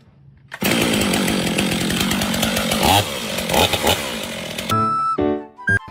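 A loud motorised tool or engine running, starting about half a second in and cutting off near the end, followed by a brief pitched tone.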